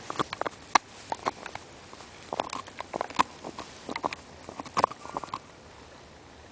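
Dog chewing a bone, its teeth making irregular crunching and cracking clicks in quick clusters, which thin out near the end.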